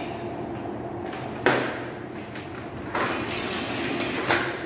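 Accordion folding door being fitted: a sharp knock about a second and a half in, then the folded panels sliding and rattling in the frame for about a second and a half, ending in a click.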